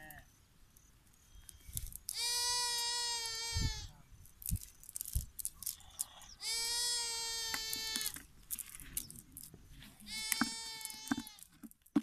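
A goat bleating three times, each a long, steady-pitched call of about a second and a half, with faint rustling and clicks of a cast net being handled between the calls.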